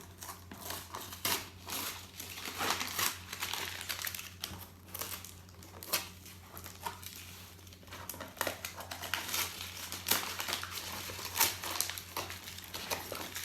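Gift wrapping crinkling and rustling in irregular bursts as a present is unwrapped by hand.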